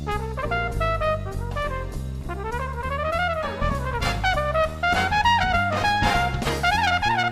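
Background music: an upbeat swing-jazz tune with brass horns playing the melody over a walking bass and drums.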